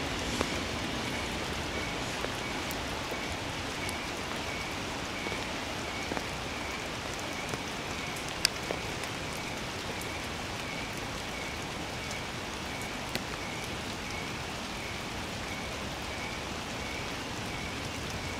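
Steady rain falling, with occasional sharp drops ticking close by and a faint high chirp repeating about twice a second.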